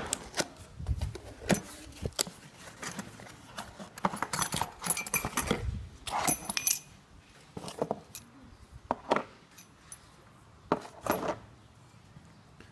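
A cardboard box being opened by hand and a propeller shaft centre bearing lifted out. Cardboard scrapes and rustles with sharp clicks, and there are light metallic clinks from the bearing's metal mounting brackets in the middle.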